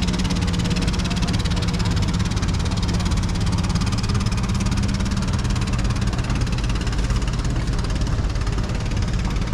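A motor engine running steadily at an even pace, with a low hum and no change in speed.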